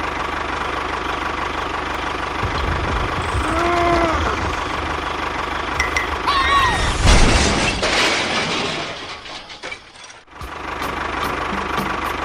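Small motor running steadily with a constant hum, joined by a few short gliding voice-like sounds and a louder noisy stretch about seven seconds in. The sound drops away and resumes about ten seconds in.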